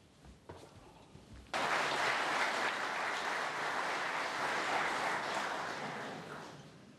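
Snooker audience applauding, the clapping starting abruptly about a second and a half in and dying away near the end.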